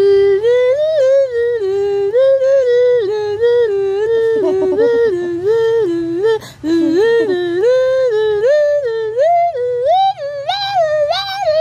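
A single voice humming a tune in short held notes that step up and down, climbing higher near the end, over a faint steady low hum.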